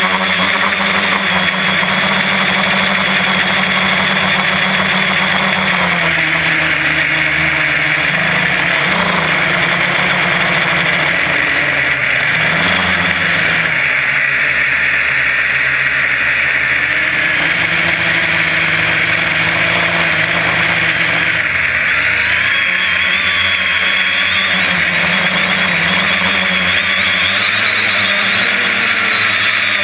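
Quadcopter's motors and propellers running, heard through the camera mounted on the quad itself. There is a steady buzz whose pitch shifts up and down several times as the throttle changes.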